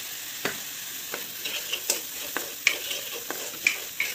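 Thick masala paste frying in a kadai, with a steady sizzling hiss, while a wooden spatula stirs and scrapes it in short, irregular strokes against the pan.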